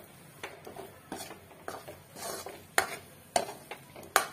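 Metal ladle scraping and stirring thick masala paste around a metal kadhai as it is sautéed, with repeated scraping strokes and a few sharp clinks of ladle on pan, the loudest near the end.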